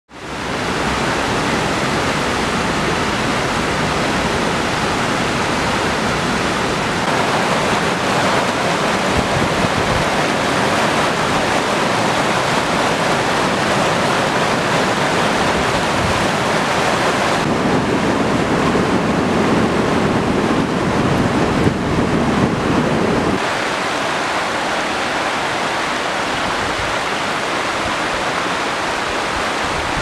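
Steady rush of water pouring over river rapids and small waterfalls, rising from nothing at the very start. The tone shifts several times and is deeper and fuller for several seconds past the middle.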